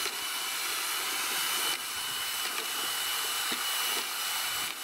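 Corded electric drill fitted with a construction mixing whisk running steadily in a pot of water and sugar, a continuous motor whine with a steady high tone, stirring the sugar in to dissolve it for bee syrup.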